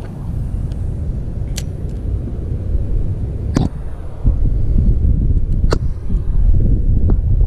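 Wind buffeting the microphone in a loud, uneven low rumble. A few sharp clicks come through it, from the spinning rod and reel being handled.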